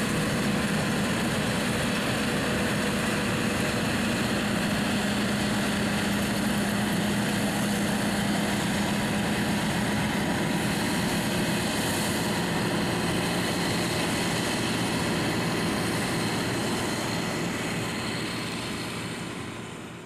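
John Deere 9660 WTS combine harvester running while harvesting: a steady noise of engine and threshing machinery with a low hum, fading out over the last few seconds.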